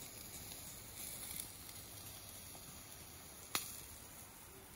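Small wood fire burning in a folding metal fire stove: a quiet steady hiss with a few soft crackles, and one sharp crack about three and a half seconds in.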